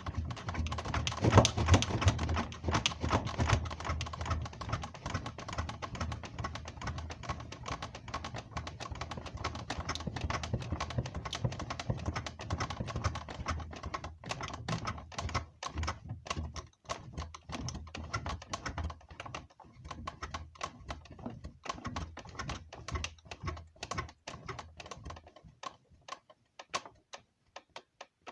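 A bed creaking and clicking in a dense, irregular run of small cracks and ticks. The run thins out near the end and stops.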